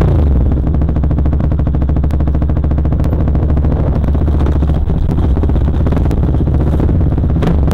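KTM dirt bike engine running at fairly steady revs, heard close up from on the bike, with a few sharp knocks as it rides over the rough trail.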